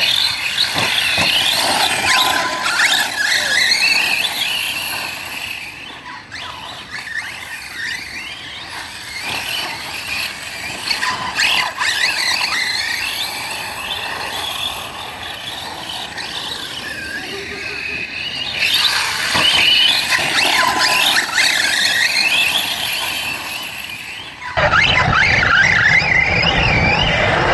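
Large-scale RC off-road trucks' motors whining, rising and falling in pitch again and again as they accelerate and slow round the track. Near the end the sound switches abruptly to a steadier, deeper noise.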